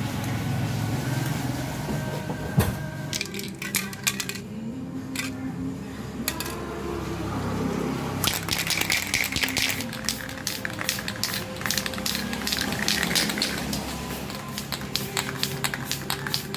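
Background music, with a run of sharp clicks and clatter over it from about eight seconds in.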